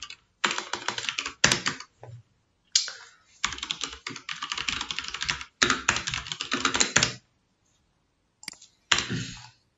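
Typing on a computer keyboard: several quick runs of key clicks, a pause of about a second and a half, then one more short run near the end.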